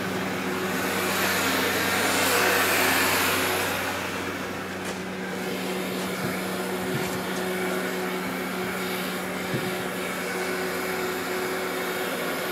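Heat gun running steadily on an aluminum car hood to pop out dents: a constant fan whir and air rush over a steady hum, the rush swelling for a couple of seconds near the start.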